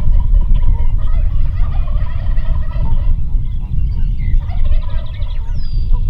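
Merriam's wild turkeys gobbling, with repeated rattling calls over a heavy, steady low rumble. A few faint high bird notes come through as well.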